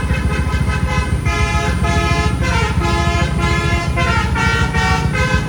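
Bus's multi-tone 'telolet' horn playing a tune of quickly changing notes over the steady low rumble of the bus engine.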